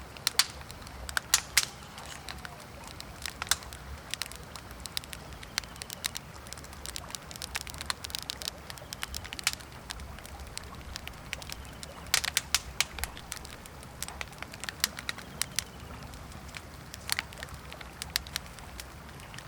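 Wood campfire crackling, with irregular sharp pops that come in flurries, over a steady low background rush.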